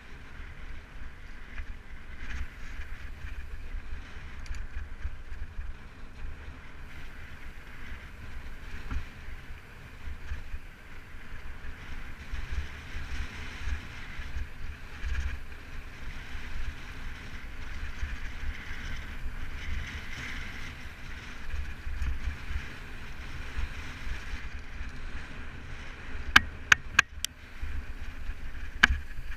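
Mountain bike rolling along rocky desert singletrack: tyres on loose gravel and trail chatter, with wind buffeting the camera microphone. Near the end, a quick run of three or four sharp clicks, the loudest sounds here.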